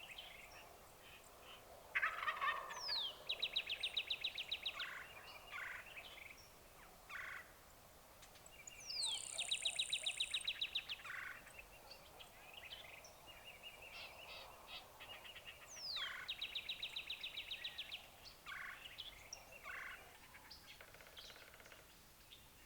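Wild turkey gobbling three times, about seven seconds apart, each gobble a rapid rattling run of notes. Short chirps of small birds come between.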